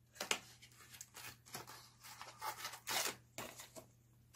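A small cardboard supplement box being opened by hand and a blister pack of capsules pulled out: a run of short rustles, scrapes and clicks of card and plastic, the loudest about three seconds in.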